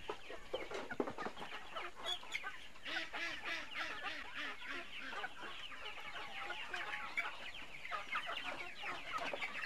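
A flock of free-range village chickens (ayam kampung) clucking and calling as they crowd in for feed. Many short, overlapping calls, growing much busier from about three seconds in.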